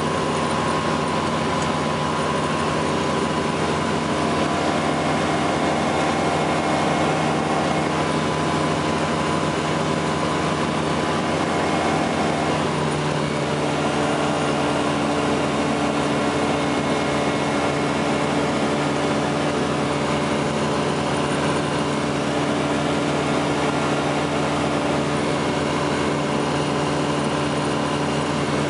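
FlightStar ultralight's engine and propeller droning steadily in cruise flight, heard from inside the cockpit. Its tone shifts slightly a little under halfway through.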